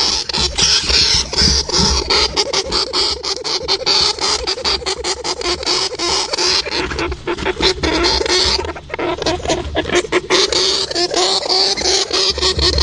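Hamster noises: a dense run of rapid clicks and scratching over a steady hum, thinning briefly about two-thirds of the way through.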